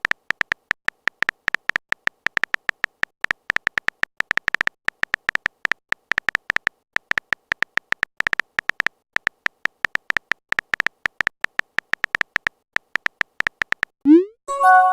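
Phone on-screen keyboard typing clicks in a fast, uneven run, several a second. Near the end, a short rising swoosh and a brief chime.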